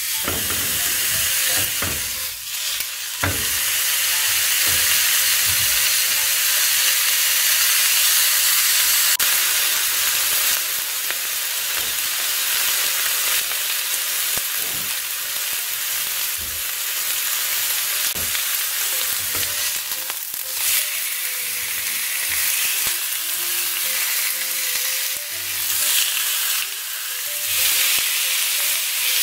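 Thin slices of hanwoo beef sizzling steadily on a hot ridged grill pan over a gas burner. A few sharp clicks of metal tongs on the pan come in the first few seconds.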